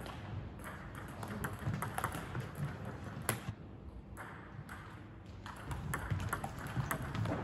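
Table tennis ball clicking on paddles and table: scattered clicks at first, then coming quickly in a rally from about five seconds in.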